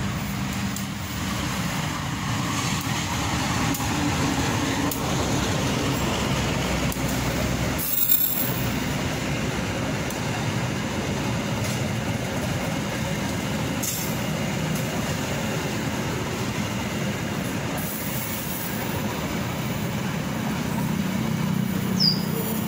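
Diesel-electric CC201 locomotive hauling a passenger train past close by, its engine running under steady wheel-on-rail noise as the stainless steel coaches roll through. There is a short break about eight seconds in, and a few sharp clicks later on.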